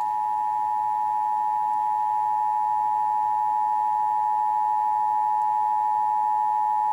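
Emergency Alert System attention signal: the steady two-tone alarm (853 and 960 Hz sounded together) played from a television, marking the start of a nationwide EAS test.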